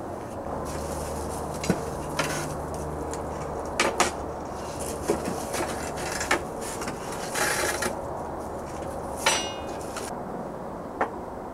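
Metal tools and car parts clanking and knocking at irregular intervals, with one ringing metallic clink about nine seconds in, over a steady low hum.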